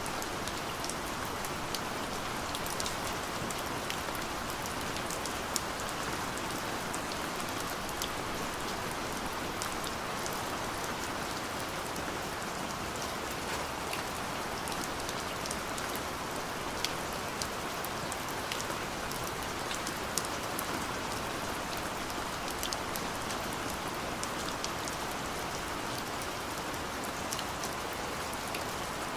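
Steady rain with many individual drops ticking sharply on a surface.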